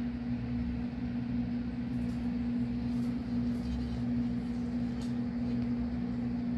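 Electric fan running: a steady mechanical hum with one constant low tone, with a few faint soft ticks from handling.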